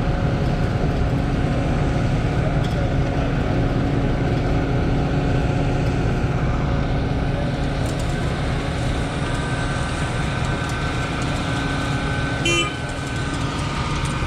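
Heavy diesel truck engine running steadily, with a brief toot about twelve seconds in.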